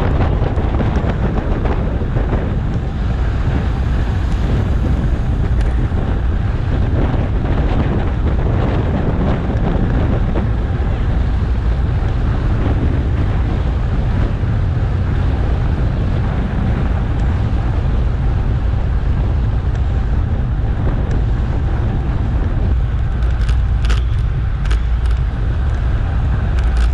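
Steady, loud wind rush buffeting a GoPro Hero7's microphone on a moving bicycle, heaviest in the low end, with a few sharp clicks near the end.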